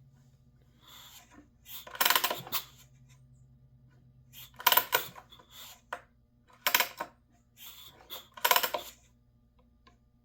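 Short metallic clicking and clinking rattles from handling the McCulloch PM 700 chainsaw: four main bursts about two seconds apart, with fainter clicks between them, over a faint steady hum.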